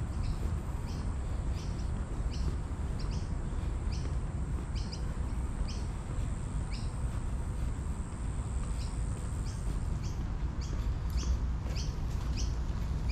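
Outdoor ambience: a steady low rumble with a short, high chirp repeating at an even pace of a little under twice a second.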